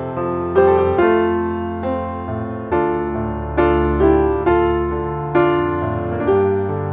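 Background music: piano chords struck about once a second, each ringing and fading.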